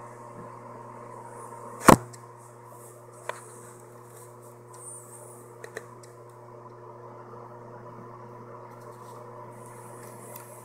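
A steady low hum made of several even tones. It is broken by one sharp click about two seconds in and two fainter clicks later.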